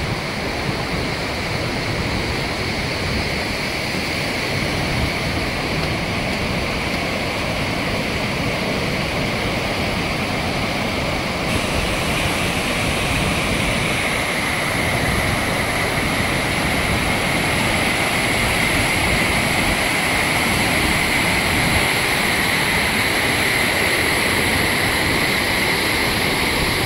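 Steady rushing of a fast, swollen floodwater river. From about halfway in, it becomes the louder rush of water pouring through a barrage's open gates.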